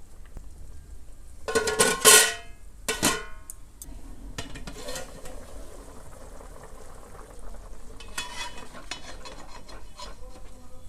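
A metal spoon stirring and scraping in a pan of curry, with two loud scrapes about two and three seconds in, over a faint sizzle.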